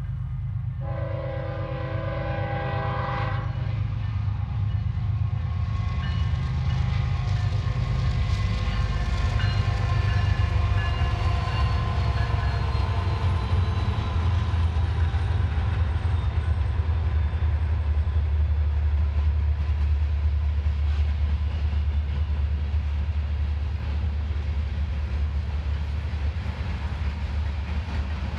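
Union Pacific freight train: a diesel locomotive horn sounds one short chord about a second in. Then the locomotives and freight cars run past with a deep, steady rumble of engines and wheels on the rails, loudest in the middle.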